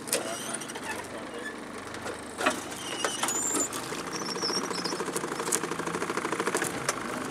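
Timber branches knocking and scraping against an aluminium boat hull as it pushes through submerged trees. Scattered sharp knocks early on, then a fast, continuous rattling scrape from about halfway through.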